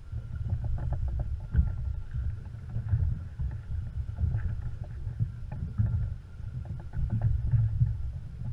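Uneven low rumble of wind on the microphone and water slapping against a small boat's hull, with scattered light clicks from the spinning reel as a hooked fish is played on a heavily bent rod.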